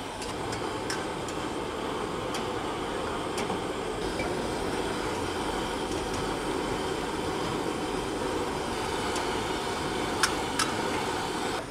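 Steady roaring noise of a street-food cooking stall. About ten seconds in come two sharp metal clinks, a ladle striking the karahi.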